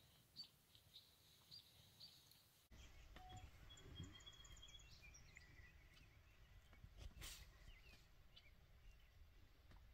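Faint songbirds chirping and singing, with a low background rumble that steps up suddenly about three seconds in. A single sharp click a little past the middle.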